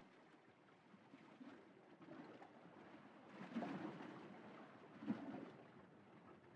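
Near silence, with faint rustling as a sail bag is handled and closed, a little louder about three and a half seconds in and again about five seconds in.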